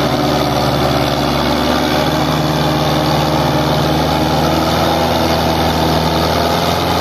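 Belarus tractor's diesel engine running at a steady pitch under heavy load as it pulls a fully loaded sugarcane trolley.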